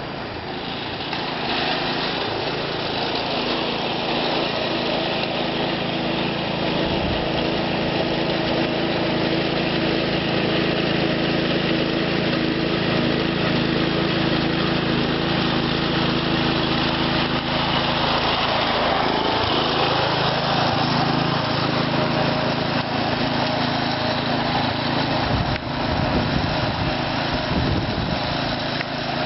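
1974 Gravely 408 tractor's engine running steadily under load while plowing snow. Its pitch sags briefly about two-thirds of the way through, then recovers.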